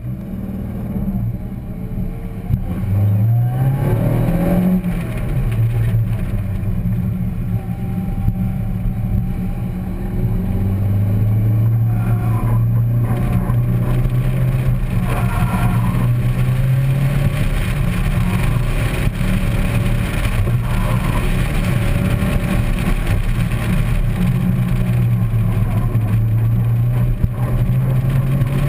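Car engine under hard acceleration at the start of an autocross run. The revs climb steeply a few seconds in and drop back, then the engine runs at fairly steady revs with smaller rises and falls, over steady road and wind noise.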